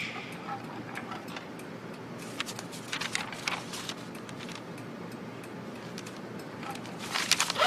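Quiet room tone with scattered soft clicks and light rustles, bunched about three seconds in and again near the end.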